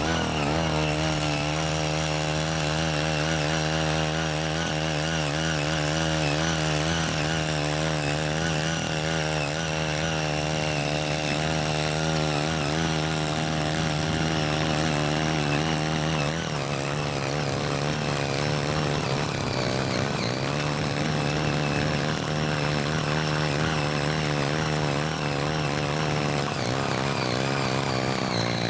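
Small petrol engine of a CY80 mini rotary tiller running at high revs under load, its pitch wavering constantly as the tines dig into hard, uncultivated soil. Its pitch drops slightly about halfway through.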